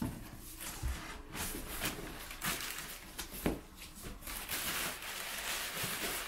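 A long cardboard shipping box being opened by hand, flaps and cardboard scraping and clicking, then crumpled brown kraft packing paper rustling and crinkling as it is pulled aside, densest from about four and a half seconds in.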